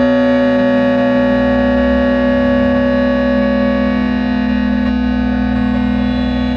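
Piano recording slowed by an extreme time-stretch into a drone: a dense chord of many held tones with no note attacks, slowly shifting as some tones fade and others swell.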